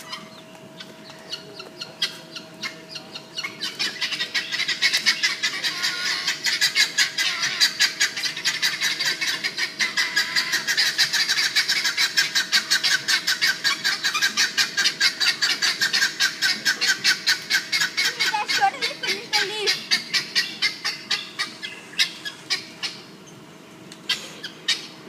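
Emu pecking and snapping at leaves held out to it: a fast run of sharp pecks, several a second, that starts a few seconds in and stops shortly before the end.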